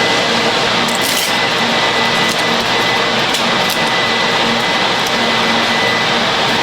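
Filter-production machinery running steadily: a dense, even mechanical noise with a thin high whine and a low hum, and a few light clicks.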